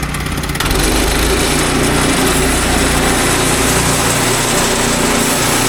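Woodland Mills HM122 portable bandsaw mill running, its gas engine driving the spinning band blade in a loud, steady mechanical noise that steps up about a second in.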